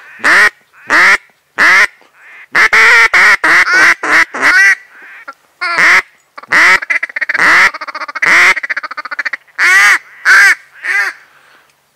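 Loud duck quacking in the mallard style: a few single quacks, then a run of quick quacks, then a fast chattering series about midway, ending in a few more single quacks.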